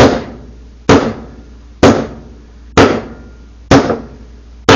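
Steady hammer blows, about one a second, six in all, each ringing briefly as it drives a new bearing into a Samsung washer's tub bearing housing, tapped around the bearing's edge to seat it evenly.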